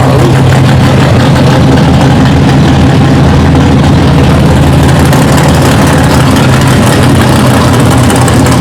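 Car engines running at low speed, a steady low rumble of classic cars rolling in and idling in traffic.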